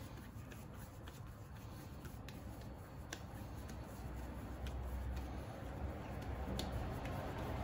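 Soft, sticky clicks and pats of hands rolling and shaping coxinha dough, a few scattered ticks every second or so, over a low rumble that slowly grows louder toward the end.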